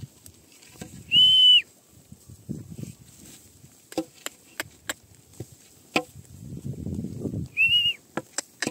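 Two short, high whistles, each held at one steady pitch: the first about a second in and a shorter one near the end. Between them, sheep grazing: grass being torn and chewed, with scattered sharp clicks.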